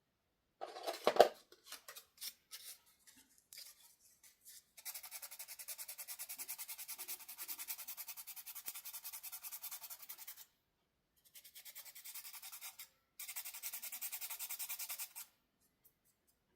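Handling clicks and knocks, one sharp knock about a second in, then fast, even back-and-forth scraping strokes in three bouts, the first the longest, like an abrasive being rubbed on a hard surface.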